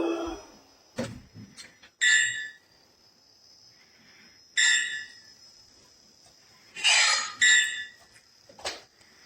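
Toy lightsaber's built-in speaker playing short electronic sound effects: a handful of sharp, bright half-second bursts a second or two apart, over a faint steady high-pitched tone.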